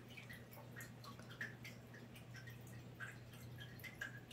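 Faint aquarium sounds: small scattered drips and ticks over a low steady hum.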